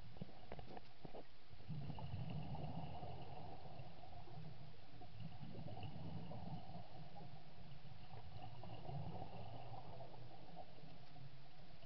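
Muffled underwater rumble and gurgling heard through a camera's waterproof housing, with a scuba diver's exhaled bubbles, while a diver digs in seabed sediment. A few short knocks in the first second.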